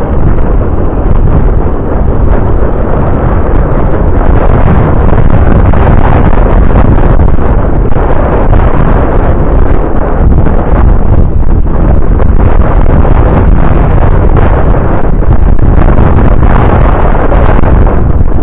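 Wind buffeting the microphone of a camera carried on a moving road bicycle: a loud, steady, deep rush of noise that does not let up.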